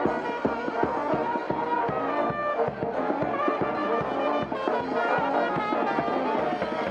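Marching jazz brass band playing, with a sousaphone and horns sounding over a steady beat.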